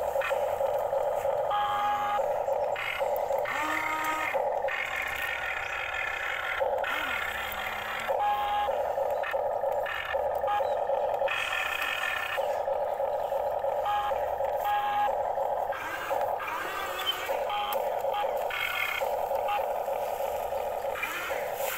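Small electric motors of a toy radio-controlled XCMG excavator whirring in short runs that start and stop as the boom, arm and bucket move, with short high tones now and then.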